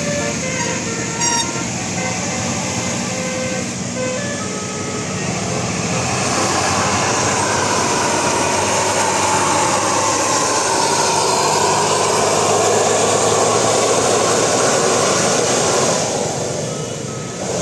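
Bus telolet horn playing a tune of short stepped tones for the first four seconds or so, then a large bus passing close by, its engine and tyre noise rising to a steady loud rush and dropping away near the end.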